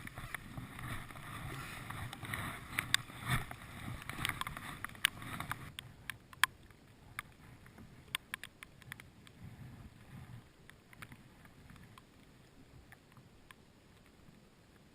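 Water splashing and lapping around a sit-on-top kayak, then quieter for the last half with scattered sharp drips and taps.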